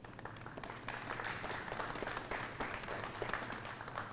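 Audience applauding, the clapping building up about a second in and thinning out near the end.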